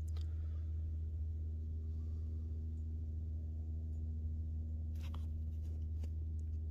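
Quiet woodland ambience under a steady low rumble, with a few small clicks and rustles about five to six and a half seconds in.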